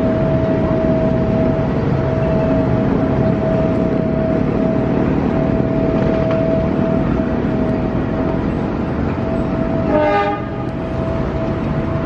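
Rail-laying work train hauling 500-metre rails, moving past on the viaduct: a steady rumble with a constant high tone over it. A short horn toot comes about ten seconds in.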